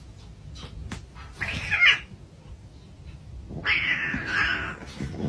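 Domestic cat meowing in two short cries: one about a second and a half in that rises and falls, and a longer one near the four-second mark.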